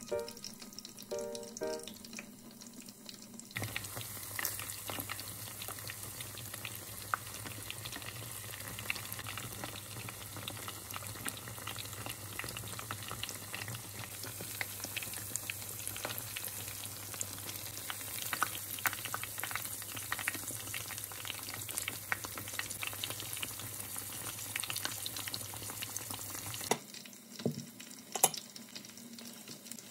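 Mushroom and shrimp tempura deep-frying in a small saucepan of oil: a dense sizzle full of crackles, which sets in about four seconds in and stops a few seconds before the end. A few soft musical notes come at the start, and a couple of light knocks come near the end.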